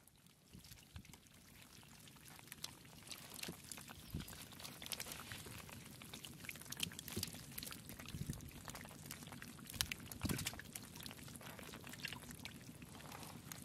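Wet trickling and splashing, with irregular small slaps and drips, growing louder over the first few seconds.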